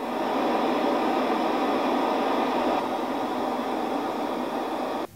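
Presonus R65 studio monitor, its back panel removed, playing a steady hiss of test noise for level calibration before a frequency measurement. The noise cuts off suddenly near the end.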